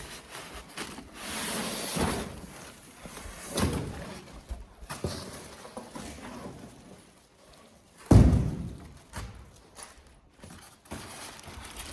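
Scattered knocks and thumps, with one heavy thud about eight seconds in and some rustling in between.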